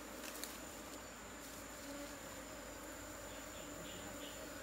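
Asian honeybees (Apis cerana) buzzing in a faint, steady hum around the comb of a wild colony being cut out for transfer into a hive, with a thin steady high tone above it.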